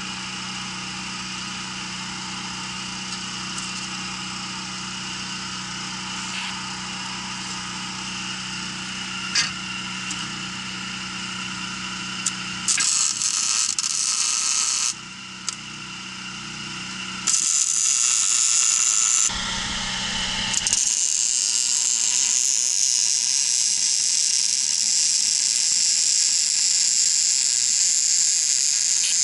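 MIG welding arc, a loud steady sizzling hiss in bursts: a short weld about 13 seconds in, another at about 17 seconds, then a long continuous bead from about 21 seconds in. Before the welding starts there is only a steady machine hum.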